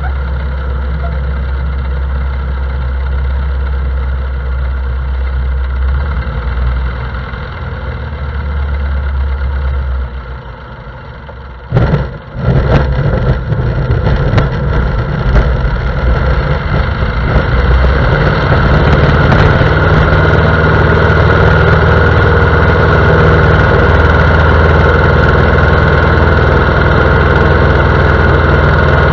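Piper J-3 Cub's engine running steadily, then throttled back and quieter about ten seconds in. A burst of knocks and rattles follows about two seconds later, typical of the wheels touching down on a gravel bar in a touch-and-go. The engine then opens up to full power and runs steady and loud for the takeoff.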